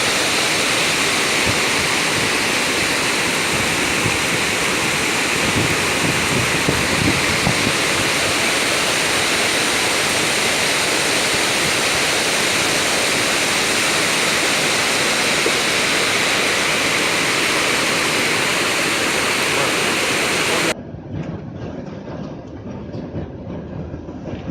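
Fast-flowing floodwater, a loud, steady rushing noise. About 21 seconds in it cuts off abruptly to a quieter, duller rumble with faint knocks.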